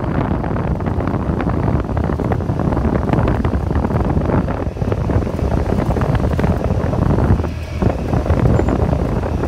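Cessna 172 Skyhawk's engine and propeller running, heard from inside the cockpit and mixed with heavy wind rushing and buffeting over the phone's microphone.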